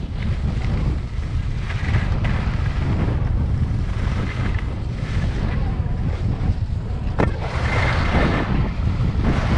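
Wind buffeting the microphone of a camera worn by a skier going downhill, over the hiss and scrape of skis carving on groomed snow that swells with the turns. A single sharp click about seven seconds in.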